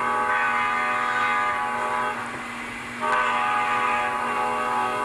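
Sound-equipped HO scale model locomotive blowing its chime horn: two long blasts, breaking off about two seconds in and resuming a second later, over a steady low hum.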